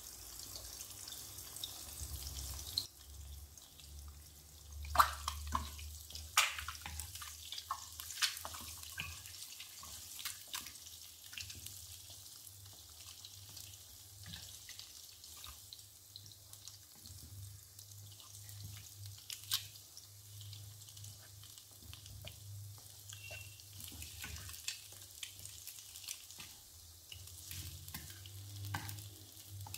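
Eggs frying quietly in oil in a nonstick pan, with a wooden spatula scraping and tapping against the pan as they are broken up and scrambled. A low steady hum runs underneath.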